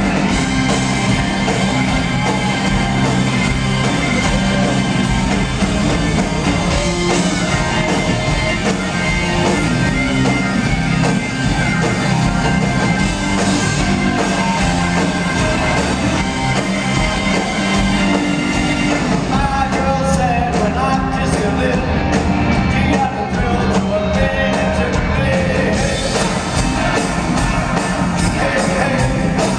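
Live rock and roll band playing at full volume: two drum kits keeping a steady beat under guitars and a sung lead vocal. For a stretch past the middle the cymbals drop back.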